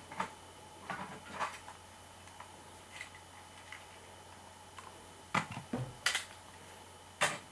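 Scattered light clicks and knocks of small objects being handled, over a faint steady hum: a few at the start, a quiet stretch, then a cluster of louder knocks in the last two seconds.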